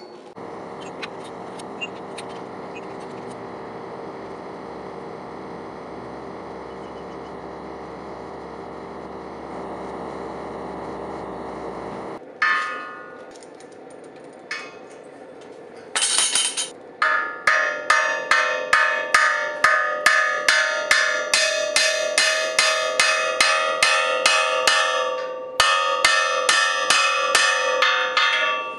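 Steady rushing noise of a gas forge burner for about the first twelve seconds, cutting off suddenly. Then a few single ringing blows on the anvil, and from about seventeen seconds a hammer striking a hot railroad spike on the anvil at about two blows a second, each blow ringing, as the spike is curled into a hook.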